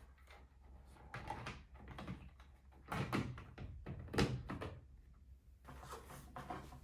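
Plastic smoke detector being handled and fitted back into place: a few scattered clicks and knocks, busiest about three to four and a half seconds in.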